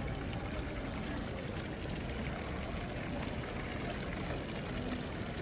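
Water from a stone fountain pouring steadily into its basin.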